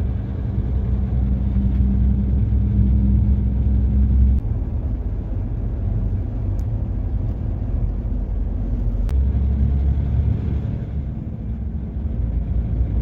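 Milk tanker truck's diesel engine running as it drives, heard from inside the cab as a steady low rumble. The engine note shifts about four seconds in and again about nine seconds in.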